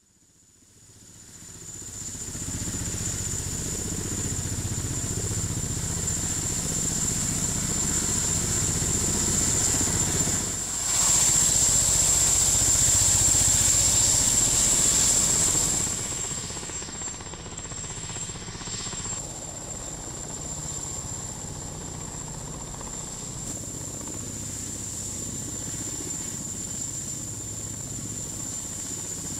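Sikorsky-Boeing SB-1 Defiant compound helicopter in flight: its coaxial main rotors and tail pusher propeller running, with a steady high whine over the throb of the rotors. The sound fades in over the first two seconds, is loudest near the middle, and drops suddenly about sixteen seconds in.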